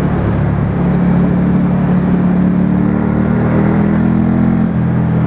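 Ducati Monster 797's air-cooled L-twin engine with a Termignoni exhaust, running at steady revs while riding, over a haze of wind and road noise.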